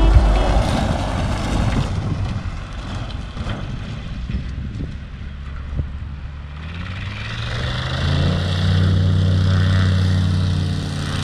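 Light bush plane's engine and propeller running on the ground, faint under a rushing noise at first. About seven seconds in, the engine note rises and grows louder, then holds a steady propeller hum.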